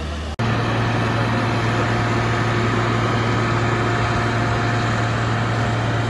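Fire truck engine running steadily with a low hum, driving the hose pump. A fraction of a second in, the hum steps abruptly to a louder, slightly higher steady drone.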